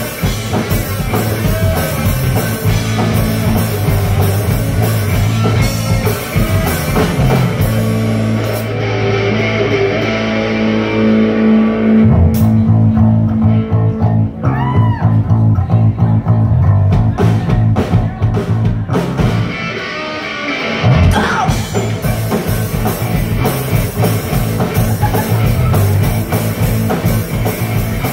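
Live rock band playing an instrumental passage on electric guitar, bass guitar and drum kit. The drums and cymbals drop out for several seconds midway, leaving guitar and bass, before the full band comes back in.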